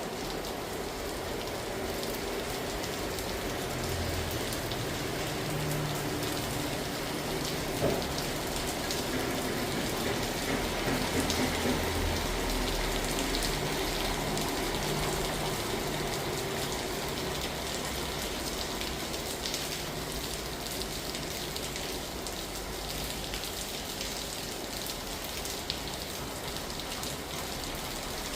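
Steady rain falling and pattering on surfaces, an even hiss that holds throughout.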